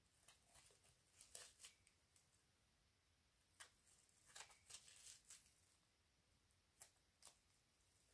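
Near silence, with a few faint rustles and light ticks as a black-gloved hand handles a small silicone tool.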